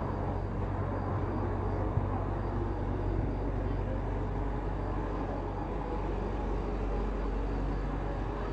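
Steady road noise inside a moving car: a low engine hum over tyre rumble, with a small knock about two seconds in.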